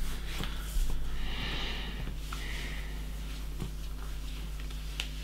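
A person breathing out heavily through the nose, a soft sigh-like exhale about a second in, with a few light clicks over a steady low electrical hum.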